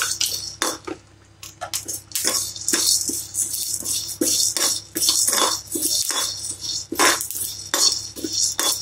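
Slotted steel spatula scraping and tapping against a metal kadai, stirring dry-roasting toor dal and spice seeds in irregular strokes, with a brief pause about a second in.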